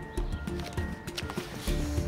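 Background music: held notes over a low, pulsing beat.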